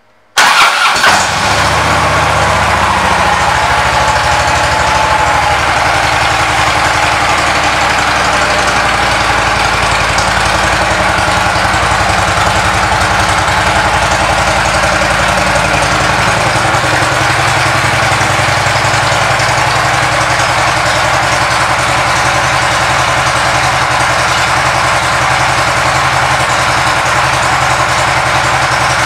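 2013 Harley-Davidson Ultra Limited's Twin Cam 103 V-twin starting with a sudden burst about half a second in, then settling into a steady idle through its aftermarket Rinehart exhaust.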